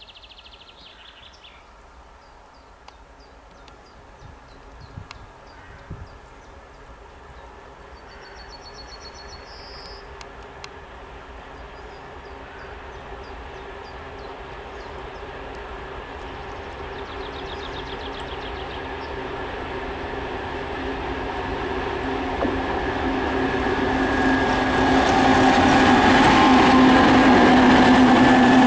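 A 2TE116 twin-section diesel freight locomotive, with its V16 diesel engines, approaches with a train of tank cars. Its steady engine drone grows gradually louder until it passes close near the end, with rail clatter from the wheels.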